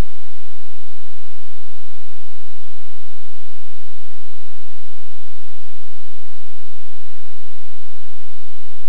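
Steady electrical hum and hiss, with a few faint steady tones over it and nothing else.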